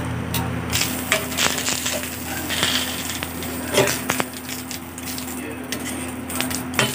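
Metal tongs clicking and scraping on a flat iron griddle as leaf-wrapped glutinous rice rolls are turned over, with the dry wrappers crackling. A steady low hum runs underneath.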